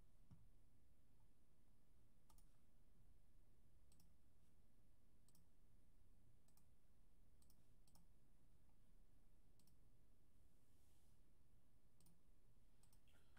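Faint, scattered clicks of a computer mouse button, one every second or two, over near silence.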